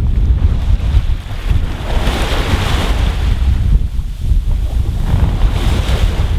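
Wind buffeting the microphone in a constant low rumble, over sea water washing and hissing past a sailboat under way; the wash swells about two seconds in and again near the end.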